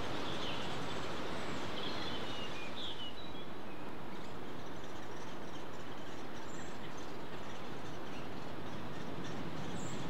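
Steady rushing woodland background noise with faint bird chirps in the first three seconds and a few short high calls later.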